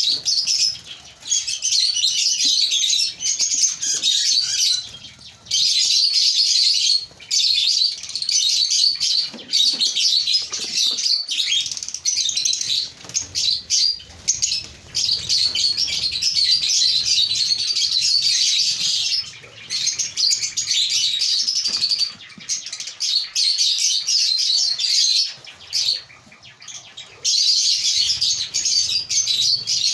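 A colony of lovebirds chattering: dense, high-pitched chirping from many birds at once. It comes in bouts of a few seconds, broken by short pauses.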